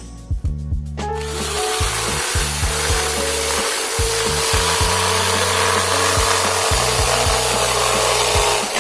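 An electric motor starts about a second in and runs steadily with a loud rushing hiss and a faint steady hum, over background music.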